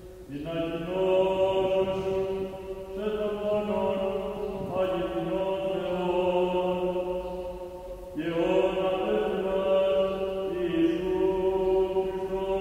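Slow Orthodox-style chant: voices hold long notes, with a new phrase beginning every few seconds.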